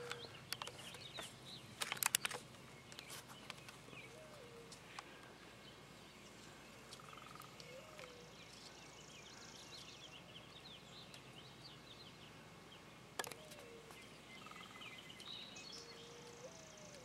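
Faint outdoor background of birds calling: scattered high chirps and a few short low hoots. Sharp clicks come about two seconds in and again near the end.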